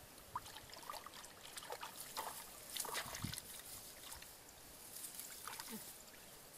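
Hands groping and splashing in shallow muddy water, with scattered small splashes and trickling.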